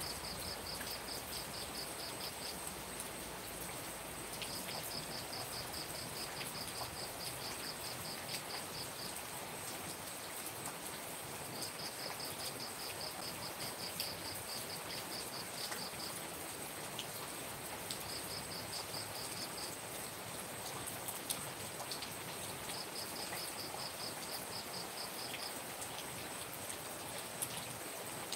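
Steady rain falling, with an insect chirping in repeated bouts of a few seconds, each a quick train of high pulses, over a continuous thin high-pitched whine.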